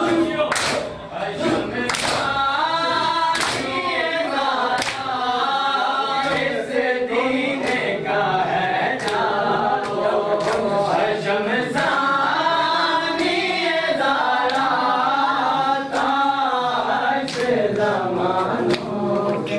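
Men's voices chanting a Muharram lament in unison, with sharp hand slaps of chest-beating (matam) at intervals.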